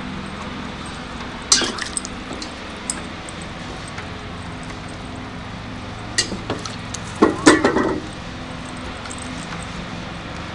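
Stainless steel dog bowl clanking and scraping on a wooden deck as a Dalmatian puppy paws and noses it: one sharp clank early, then a run of ringing clanks in the middle.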